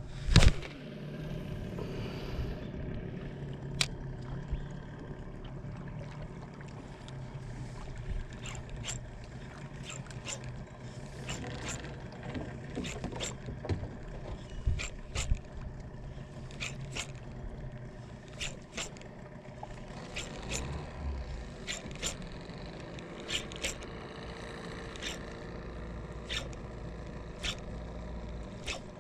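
Spinning reel cranked through a lure retrieve: a steady low whir with scattered light clicks. A sharp knock comes right at the start, as the cast is made.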